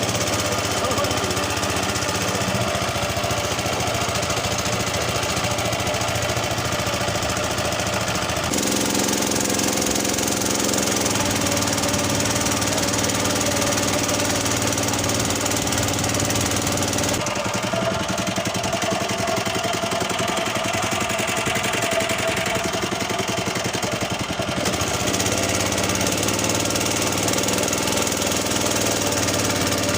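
Honda GX120 single-cylinder four-stroke engine driving a longtail boat propeller, running hard and steadily. Its note changes abruptly three times.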